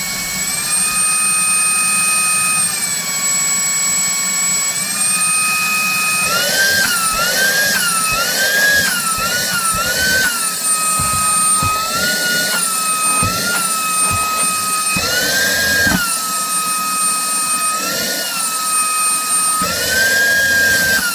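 Day Plus YC777 cordless handheld vacuum cleaner running with a steady high motor whine. It steps up in pitch a few seconds in, and from about six seconds in it rises and falls back again and again as the suction is tried.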